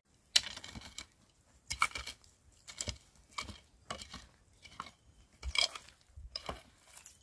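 Short-handled hand hoe striking and scraping dry, stony soil: about eight strokes, roughly one a second.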